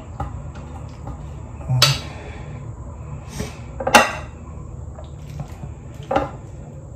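Serving spoon scraping and knocking against a stainless steel bowl as cooked macaroni is spooned onto a plate, with three sharp clinks, the loudest about four seconds in. A steady low hum runs underneath.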